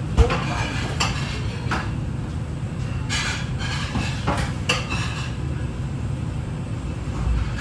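Plates and utensils clinking and knocking, about half a dozen short strikes, the sharpest just after the start, over a steady low rumble.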